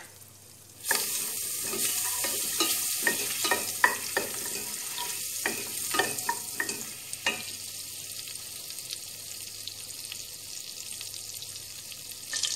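Butter melting and sizzling in a stainless steel pot, the sizzle starting about a second in and holding steady. A wooden spoon knocks and scrapes against the pot several times through the first half while the butter is stirred.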